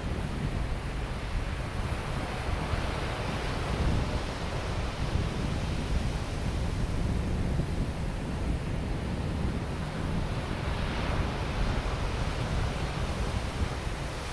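Ocean surf breaking and washing up a sandy beach, the wash swelling twice, with wind rumbling on the microphone.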